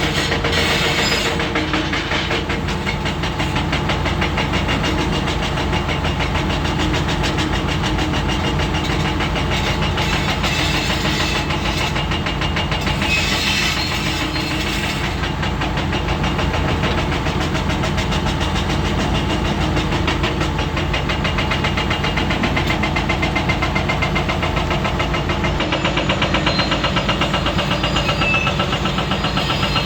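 Komatsu PC400 hydraulic excavator's six-cylinder diesel engine running steadily under working load, with a brief high-pitched noise about halfway through.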